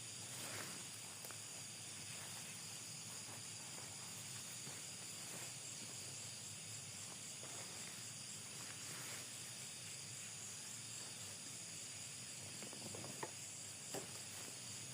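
Steady high-pitched chorus of night insects such as crickets, with a couple of faint sharp ticks near the end.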